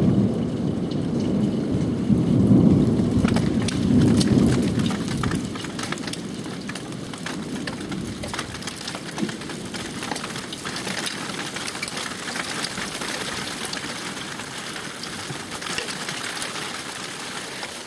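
Thunder rumbling in several swells over the first few seconds, then dying away as a dense, steady patter of hail and rain takes over.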